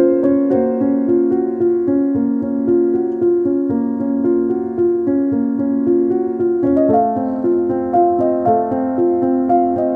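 Background piano music: sustained notes in a slow, gentle melody that moves up into a higher, fuller passage about seven seconds in.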